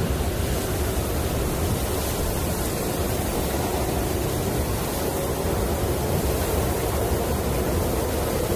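Snowstorm wind blowing steadily: a dense, even rush of noise, heaviest in the low range, with no gusts or breaks.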